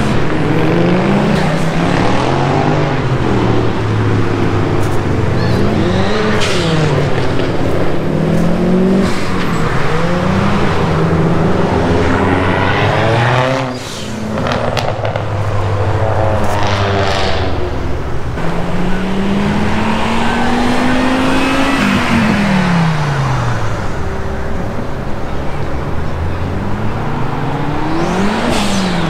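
Car engines accelerating hard one after another, the engine pitch climbing and dropping again and again through gear changes as the cars pull away.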